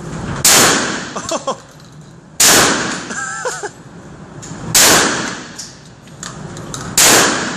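12-gauge shotgun firing birdshot, four shots a little over two seconds apart, each ringing out and dying away in an indoor range.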